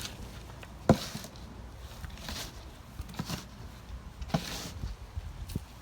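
Hands sorting small potatoes out of dumped soil: a sharp knock about a second in, then a few lighter knocks with short rustles in between.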